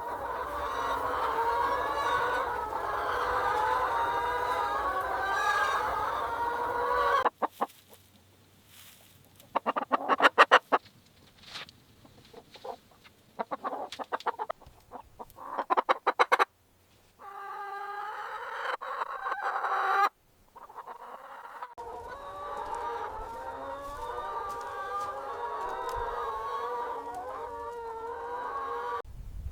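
A flock of chickens clucking and chattering together, heard in several short stretches that cut off abruptly. In the middle come sharper, louder single clucks, separated by brief gaps.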